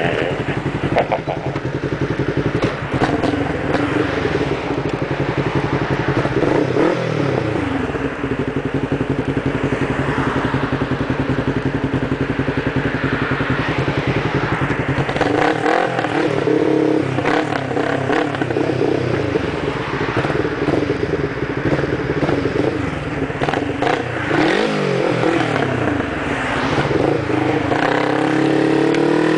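Motorcycle engine running under way, with wind rushing over the microphone. The engine note drops as the bike slows about a quarter of the way in and again about four-fifths of the way in, and rises each time it accelerates away. It climbs again near the end.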